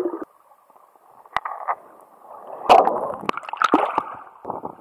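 Water sloshing and gurgling close to the microphone, with a few sharp splashes. The loudest comes about three seconds in.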